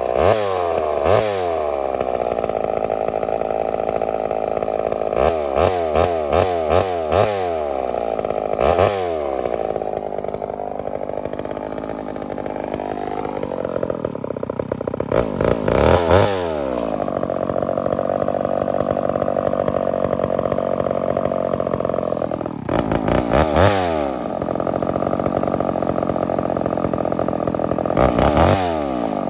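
Homelite Super XL-923 82cc two-stroke chainsaw running continuously, its throttle blipped up and back down again and again, with a quick run of several blips about five to seven seconds in. A lower, steadier stretch in the middle climbs back up in pitch.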